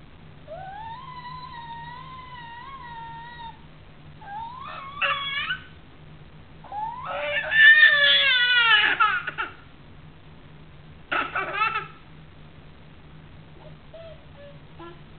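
A baby babbling and squealing in high-pitched, wavering calls: a long squeal held for about three seconds, a short call around five seconds in, the loudest squeal from about seven seconds in with its pitch falling away, and a brief burst around eleven seconds.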